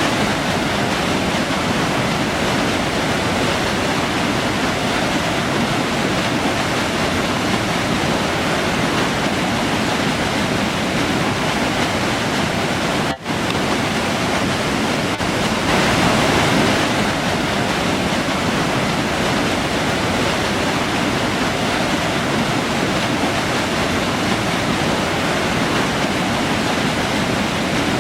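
River water rushing steadily, an even full noise of flowing water. A momentary gap about thirteen seconds in breaks it, and it swells slightly a few seconds later.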